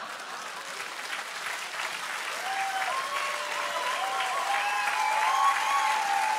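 A large outdoor audience applauding, the clapping swelling a little as it goes on. Some held, wavering tones rise above the clapping in the second half.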